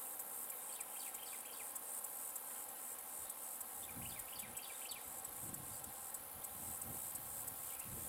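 Steady high-pitched insect chorus, with two short runs of rapid small-bird chirps, about a second in and again around four seconds in. A few soft low thumps in the second half.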